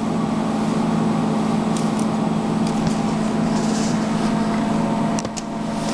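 A steady low hum, with a few faint clicks about five seconds in.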